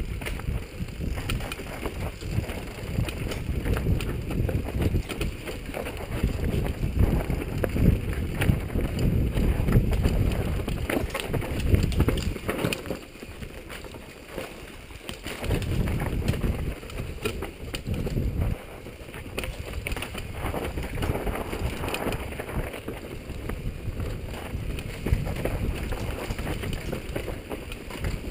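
Wind rushing over a helmet-mounted camera as a downhill mountain bike rolls fast over rough dirt trail, with frequent rattles and knocks from the bike over roots and rocks. It eases off briefly about halfway through.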